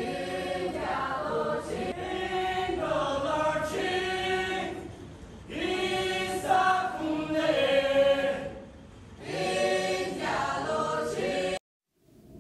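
A group of men's and women's voices singing together unaccompanied, a chant-like traditional folk song sung in phrases with short breaks. The singing cuts off suddenly near the end.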